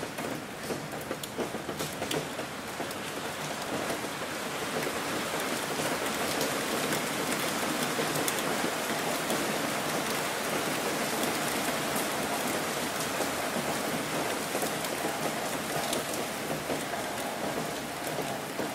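Steady rain falling, a dense even hiss with sharp individual drop ticks. It thickens and gets slightly louder about four seconds in.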